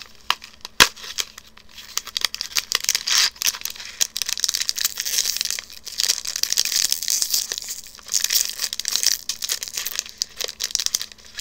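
Hands tearing and crinkling the packaging of a box of Pocky green tea biscuit sticks: a dense run of crackles and small snaps, with a couple of short pauses.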